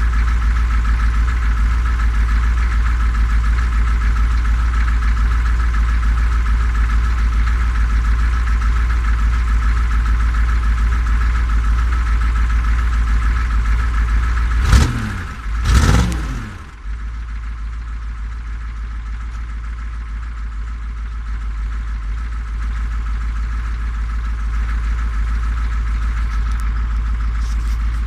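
Chevrolet 6.2 L diesel V8 idling steadily, with two quick revs about halfway through, after which it settles back to a quieter idle. The engine is running after standing unused for a year, on a freshly replaced fuel transfer pump and a newly bled fuel system.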